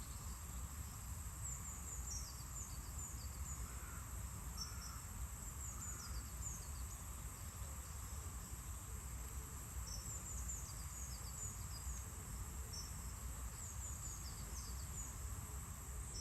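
Quiet outdoor background: a steady low rumble and a faint, steady high hiss, with scattered clusters of short, high chirps.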